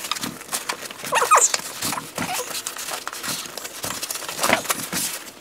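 Cardboard box flaps and tight-fitting foam packing being tugged and scraped by hand, a run of rustles and scrapes with a few short squeaks about a second in and again near the end.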